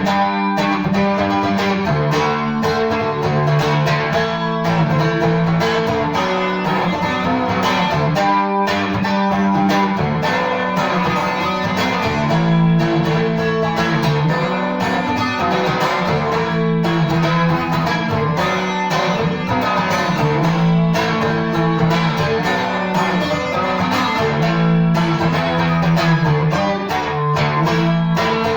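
Seagull Merlin M4, a four-string diatonic dulcimer-style instrument, played by plucking and strumming. Melody notes ring over a low bass note that changes every second or two.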